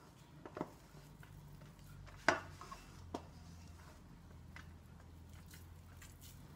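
Hands scraping and squeezing soft lentil köfte mixture in a metal tray, with a few light knocks of fingers against the tray, the sharpest about two seconds in.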